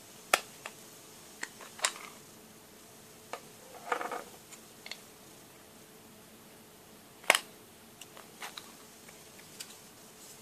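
Plastic clicks and snaps from a Ford Fiesta Mk6 dashboard air vent housing being pried at with a small metal tool: scattered sharp clicks, loudest about half a second, two seconds and seven seconds in, with a short scraping rattle about four seconds in.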